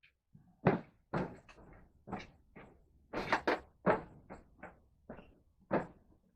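Irregular series of short knocks and clunks, about fifteen in six seconds, the loudest about two-thirds of a second in and a cluster past the three-second mark, like pieces being handled and set down in a workshop.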